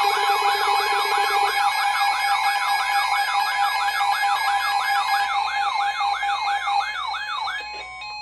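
Electronic warbling siren alert tone, sweeping up and down in pitch about four times a second, with a lower, faster warble that drops out about a second and a half in. The siren cuts off near the end. It is the alarm that comes before a weather-radio severe thunderstorm warning.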